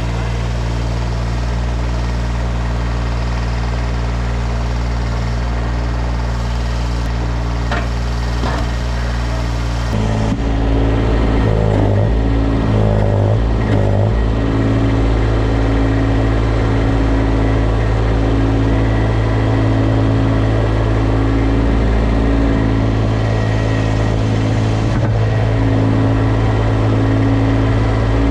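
Kubota D1105 three-cylinder diesel of a Baumalight TRL620D mini track loader running steadily. About ten seconds in it grows louder and changes pitch, wavering for a few seconds before running steadily again.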